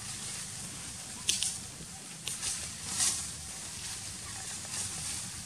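Dry leaf litter rustling and crackling in short, scattered bursts as young macaques scamper and tussle around a woven hammock, over a steady low hum.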